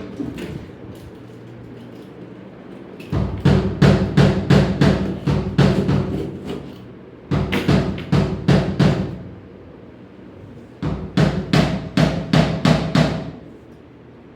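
Music with a drum beat, about three hits a second, played in three stretches with quieter gaps between them.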